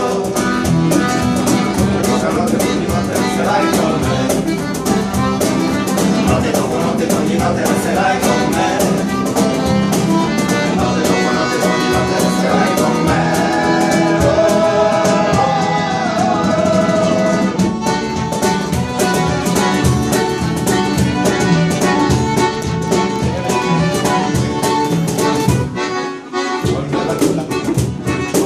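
Live acoustic music: acoustic guitar strumming, a hand drum played with the hands, and singing, with a brief break in the low end near the end.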